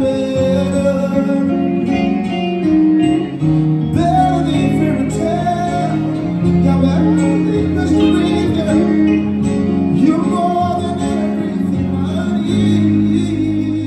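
Live band music: a male singer singing long, bending melodic lines into a microphone, accompanied by keyboard and guitar, all amplified through the stage speakers.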